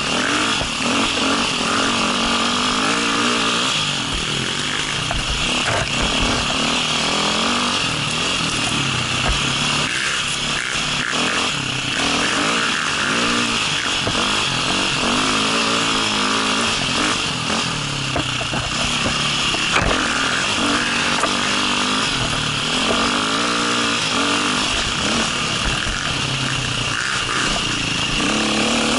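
Enduro dirt bike engine heard close up from the rider's helmet, its pitch rising and falling again and again as the throttle is worked on a forest trail. Occasional short knocks are heard over it.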